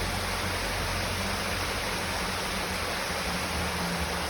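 Brook water rushing steadily: an even, unbroken rush.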